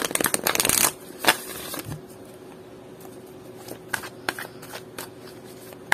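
An oracle card deck being riffle-shuffled by hand: a fast flutter of cards in the first second, then scattered taps and slides as the cards are pushed together and shuffled again.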